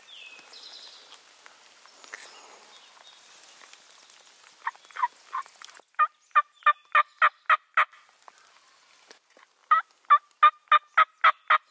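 Turkey yelping: a few soft notes, then a loud run of about seven evenly spaced yelps, a two-second pause, and another run of about nine.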